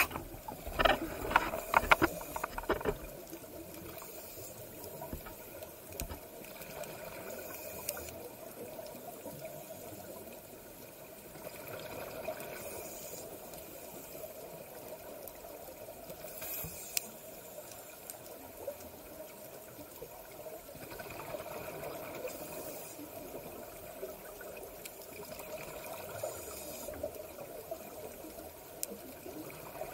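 Underwater ambience picked up through a camera housing, with a scuba diver's regulator breathing out bubbles in a hissing burst about every four to five seconds. A run of sharp knocks and clicks in the first three seconds as the housing is handled.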